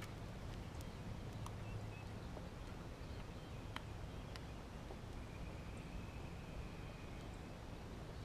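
Faint scattered clicks and taps from handling a just-caught bass and the lure in its mouth, over a low steady hum. A faint high steady tone sounds for about two seconds in the second half.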